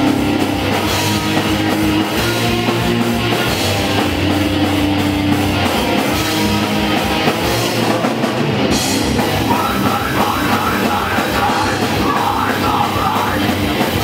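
Live heavy rock band playing loud with drum kit and instruments, in a punk or metal style. A vocal comes in over the band about nine seconds in.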